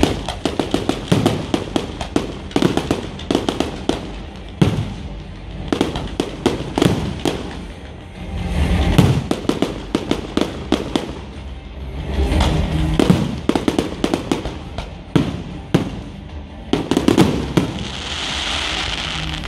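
Fireworks display: a rapid, uneven string of bangs and crackles from bursting shells, with heavier volleys several times and a crackling hiss near the end.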